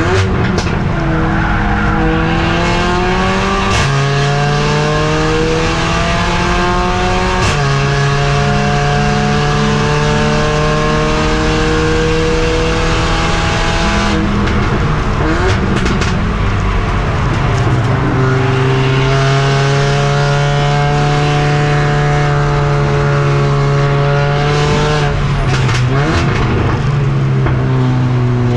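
Racing Mercedes-AMG CLA45's turbocharged four-cylinder engine heard from on board under hard acceleration: the pitch climbs and drops sharply at two upshifts in the first eight seconds, runs up through a long pull, breaks off with a lift and downshifts about halfway through, then climbs again through the gears.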